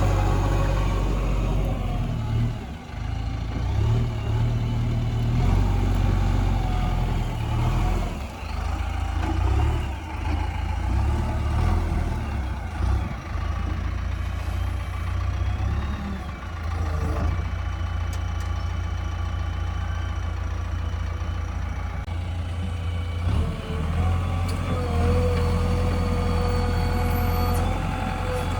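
JCB backhoe loader's diesel engine running under load, its speed rising and falling as the machine works, then settling to a steadier run. A steady whine joins in near the end.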